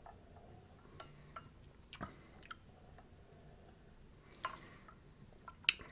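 A person taking two sips of carbonated cherry-flavoured sparkling water from a glass: faint swallows and small mouth clicks, with a short breathy sound about four and a half seconds in.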